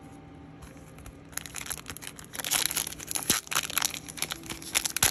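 Crinkly foil wrapper of a Yu-Gi-Oh OTS Tournament Pack 16 booster pack being crumpled and torn open by hand, a dense crackle that starts about a second and a half in.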